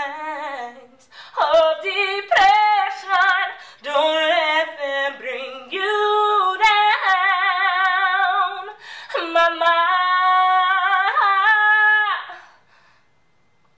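A woman singing solo and unaccompanied, in phrases with a strong vibrato on the held notes. The singing stops about twelve seconds in.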